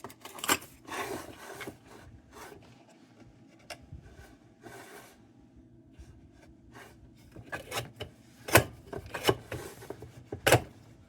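Metal parts of an Embury Air Pilot kerosene lantern being handled and fitted together: scattered light clicks, knocks and scraping rubs, busier in the last few seconds, with two sharper metal clicks near the end.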